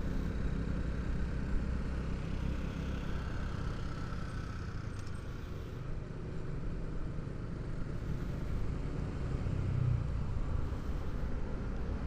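Honda CB150R single-cylinder motorcycle engine running at a steady cruise while riding, mixed with steady low wind and road rumble.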